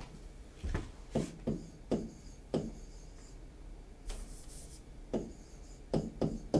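Handwriting on an interactive touchscreen board: a series of short taps and scrapes as letters are drawn, with a longer scrape a little past the middle.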